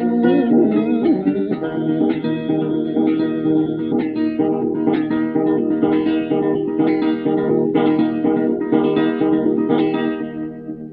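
Blues music played on guitar: plucked strings in a steady rhythm, fading out at the end.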